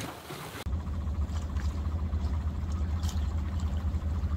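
A low, steady engine drone with a fast, even pulse, starting suddenly about half a second in.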